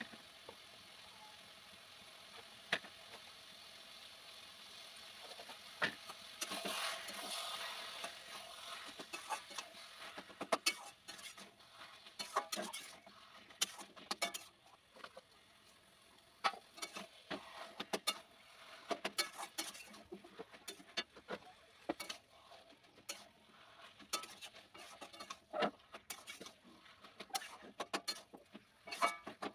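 Sizzling in a wok of taro leaves, a steady hiss for the first several seconds, then a metal spatula stirring and scraping against the wok with frequent sharp clicks and scrapes from about ten seconds in.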